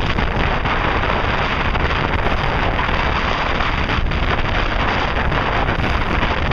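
Steady wind buffeting the microphone aboard a ferry under way, with the rushing of water and the boat's engine running beneath it.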